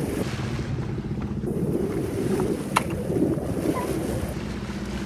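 Wind buffeting the microphone over the steady hum of a sailboat's engine motoring along, with water washing past the hull. A single sharp click comes a little before halfway through.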